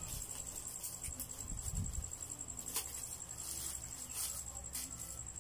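A cricket trilling steadily, a fast, even pulsing high tone, with a few sharp clicks from things being handled close by.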